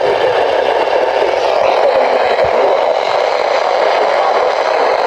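Weather radio receiver hissing with loud, steady static while tuned to a barely received station: the signal is too weak for the broadcast to come through clearly.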